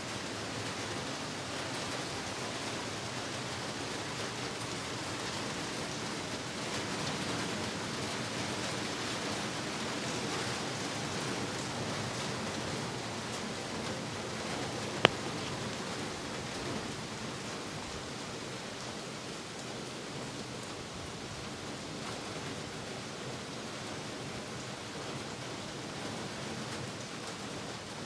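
Heavy rain falling steadily, with one sharp click about halfway through.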